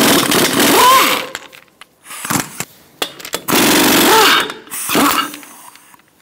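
Pneumatic impact wrench with a 21 mm socket spinning lug nuts off a car wheel in several bursts, its pitch rising and falling with each pull of the trigger.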